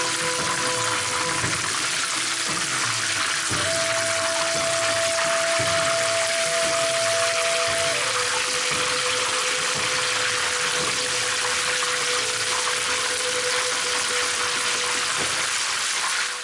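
Cornstarch-coated chicken wings deep-frying in a pan of hot oil: a steady, loud sizzle and crackle of bubbling oil.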